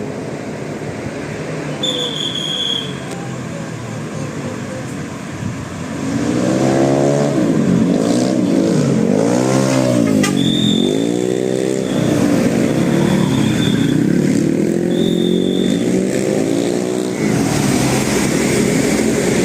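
A vehicle engine revving again and again, its pitch rising and falling, over steady traffic noise, with a few short high-pitched whistle blasts.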